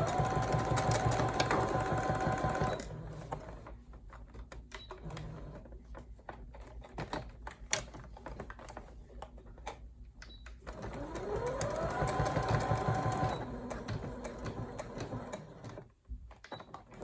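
Electric sewing machine stitching back and forth through denim and elastic in short runs: the motor whine rises to a steady pitch, runs for a few seconds and winds down, twice, with light clicks from handling the machine in between, and a third run starting near the end.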